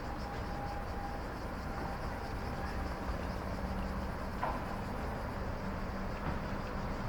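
Night chorus of cicadas, a steady high pulsing drone, over a constant low rumble.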